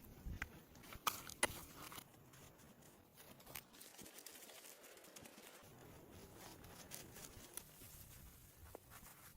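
Faint crackles and scattered clicks of hands working clay mud plaster, with two sharper clicks about a second in.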